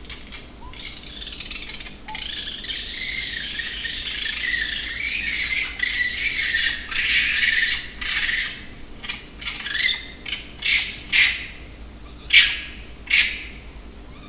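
Harsh, high-pitched animal screeching: a long, raspy, continuous stretch, then a string of short, separate screeches near the end.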